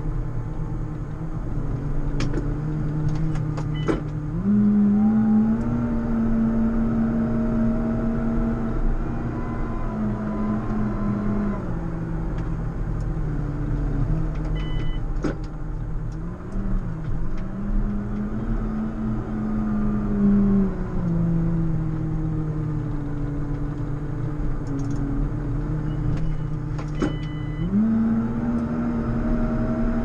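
JCB Fastrac 4220 tractor's six-cylinder diesel engine working under load while plowing snow. Its note steps up about four seconds in, drops back around eleven seconds, rises again around seventeen, drops around twenty and climbs again near the end. A few sharp clicks and knocks come through over the engine.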